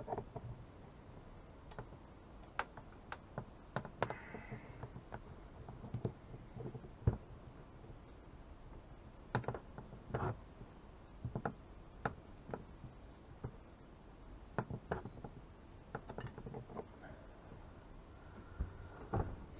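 Irregular faint clicks and light knocks of hand tools, pliers among them, working metal parts loose on a two-stroke chainsaw engine being taken apart.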